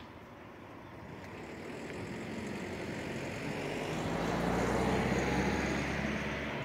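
A motor vehicle passing close by, its engine hum and road noise swelling to a peak about five seconds in, then fading.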